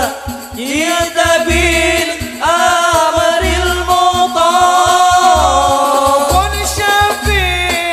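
Male voices singing Arabic sholawat in long, ornamented notes through microphones, over hadrah rebana frame drums keeping a low beat about once a second.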